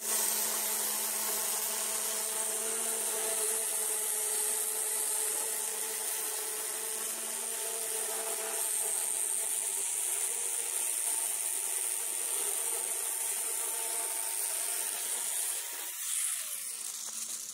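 Corded angle grinder with a diamond blade cutting cement board (USG Durock): a steady high motor whine over a gritty grinding hiss. Near the end the grinder is switched off and winds down, its pitch falling.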